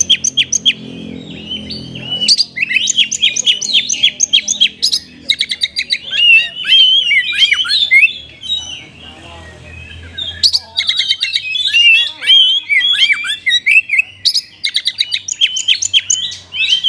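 Oriental magpie-robin (kacer) singing a loud, rapid, varied song of sharp chirps, whistled notes and fast trills, with a brief pause about halfway through.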